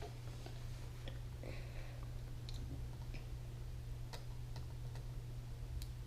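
Small, irregular clicks and taps from hand soldering work on a circuit board, about eight in six seconds, over a steady low hum.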